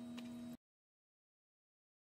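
Near silence: a faint steady hum with a couple of light clicks cuts off about half a second in, and the rest is dead silence.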